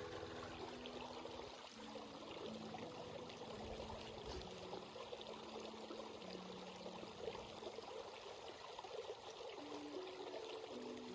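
Stream water flowing and trickling over rocks, a steady rushing babble. Soft sustained low tones sit underneath, shifting pitch every second or two.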